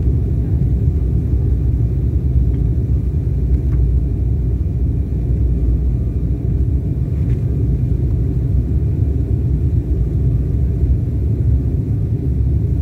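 Steady low rumble of engine and airflow noise inside the cabin of a jet airliner descending on approach to land, heard from a window seat.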